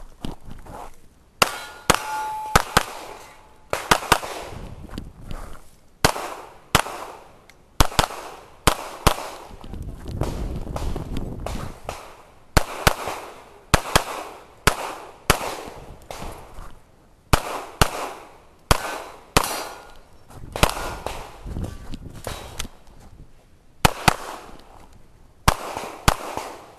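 Pistol shots from a Springfield Armory XD(M) handgun fired rapidly through a shooting stage, mostly in quick pairs, about two dozen in all. A short metallic ring follows a shot about two seconds in, from a hit on a steel target.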